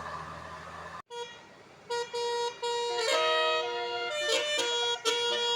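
Vehicle noise for about a second, cut off abruptly. From about two seconds in, a bus's Basuri telolet horn plays a tune: loud chords of several pitched tones that change every fraction of a second.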